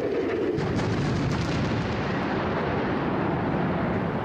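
Explosive demolition charges firing at the base of a tall concrete smokestack: a rapid crackle of blasts starting about half a second in, followed by steady broad noise that carries on as the stack begins to lean.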